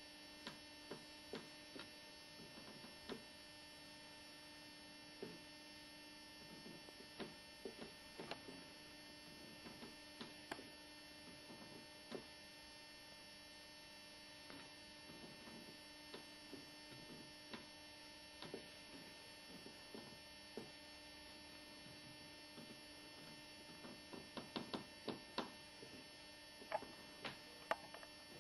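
Faint, irregular creaks and clicks from a heavy collectible statue being turned on a table, its weight making the table creak, more frequent near the end, over a steady electrical hum.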